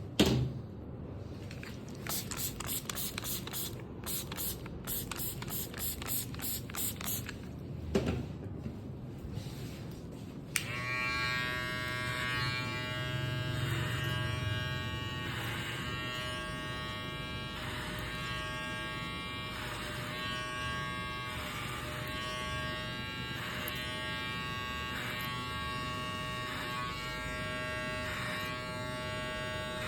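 Electric hair clipper switched on about ten seconds in and then running with a steady buzz while cutting hair. Before that come quick rhythmic ticks and a couple of knocks.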